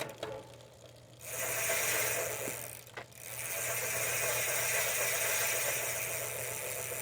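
Bicycle drivetrain spinning on a restored 7-speed Fuji Monterey: chain and rear freewheel whirring steadily as the wheel turns. The whir runs in two spells with a short break about three seconds in.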